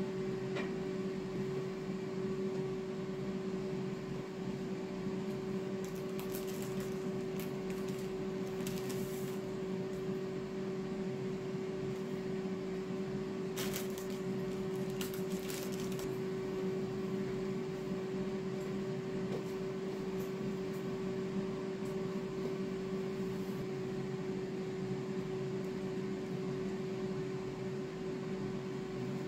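A steady mechanical hum with one strong held tone, unchanging throughout. Over it come a few soft rustles and clicks of hands laying toppings such as lettuce onto burger buns, in two short clusters, about a third of the way in and around the middle.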